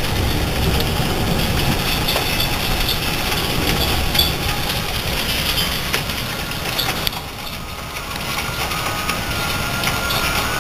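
Hail and rain pelting down, a dense steady hiss peppered with many sharp ticks of hailstones striking, over a low rumble.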